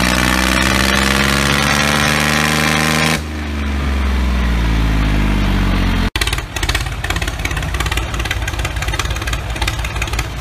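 Engine sound effects. A running engine shifts in pitch, then settles into a deeper steady rumble about three seconds in. About six seconds in it cuts off abruptly and gives way to a rougher, rapidly pulsing engine.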